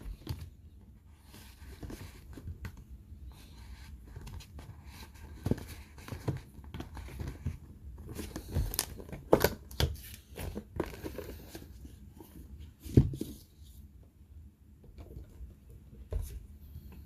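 Toy packaging being torn open and crinkled by hand, with scattered sharp clicks and knocks.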